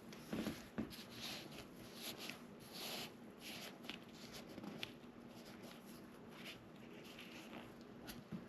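Faint rustling and scraping of hands working on the couch's upholstery, a string of short strokes at an uneven pace.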